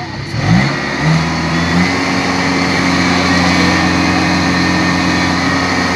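Kubota DC-70 combine harvester's diesel engine revving up in steps during the first two seconds, then running steadily at the higher speed.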